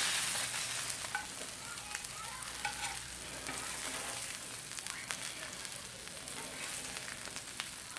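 Salmon fillets sizzling on a hot Blackstone flat-top griddle: a steady frying hiss with many small crackles and pops of spattering fat.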